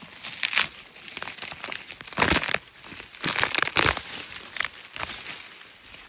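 Dry fallen leaves and twigs crunching and rustling in a series of short, irregular bursts, the loudest about two seconds in and again around three to four seconds in.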